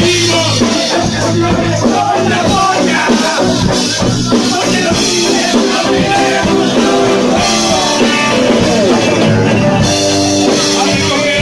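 Loud live rock band playing, with voices singing into the microphone over the band.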